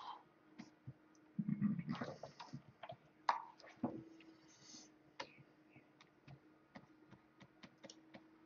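Quiet, scattered clicks of a computer keyboard and mouse being worked, irregular and sharp, over a faint steady hum. A brief louder rustle comes about two seconds in.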